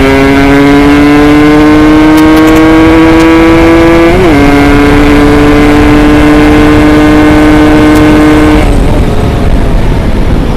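Yamaha RX Special 115 two-stroke single revving hard under acceleration, its note climbing slowly in pitch. About four seconds in it flicks up and dips briefly, then climbs again. The engine note cuts off near the end of the run, leaving a rushing wind noise.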